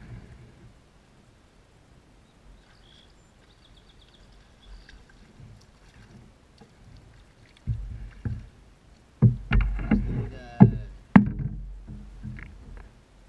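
Knocking and bumping on a kayak: quiet scattered ticks at first, then a run of loud thumps in the last five seconds or so.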